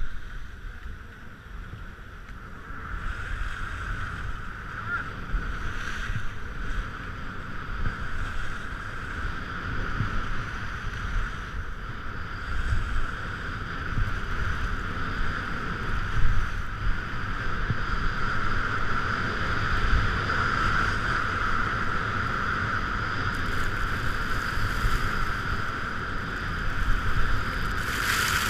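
Wind rushing over a GoPro's microphone with a steady rumble and a hiss that builds gradually, as when skiing downhill on packed snow.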